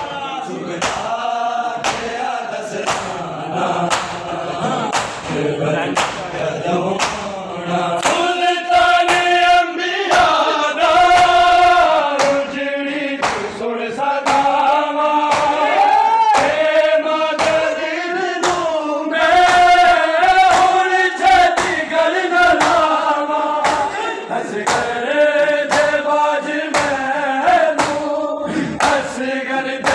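A crowd of men chanting a noha together in unison, over a steady beat of bare-handed chest slaps (matam), about two a second. The chanting grows clearer and stronger about a third of the way in.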